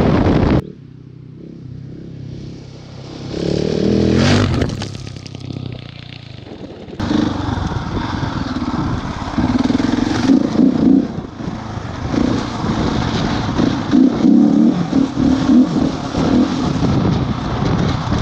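Husqvarna 701's single-cylinder engine running under changing throttle while riding on dirt tracks, rising and falling with the throttle. The sound drops sharply about half a second in, revs up around four seconds, and comes back louder from about seven seconds on.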